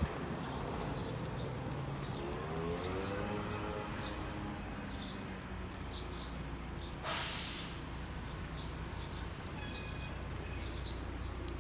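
Outdoor city-street ambience: a steady low hum under short high chirps repeating about twice a second, with a brief hiss about seven seconds in.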